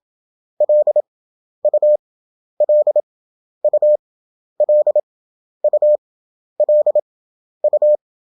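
Morse code (CW) practice tone, a single steady beep keyed at 27 words per minute with wide Farnsworth gaps. The same short character group repeats about once a second, about nine times: an abbreviation being drilled over and over.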